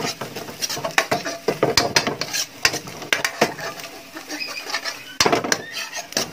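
Metal spoon scraping and clinking against a metal wok in quick, irregular strokes as sliced onion and ginger are stirred while they fry and brown. The clatter comes in denser flurries about a second in and again past the five-second mark.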